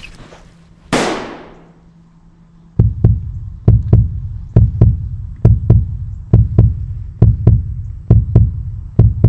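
Heartbeat sound effect: paired low thumps, lub-dub, a little under once a second, starting about three seconds in. Before it, about a second in, a sudden rush of noise that fades away over about a second.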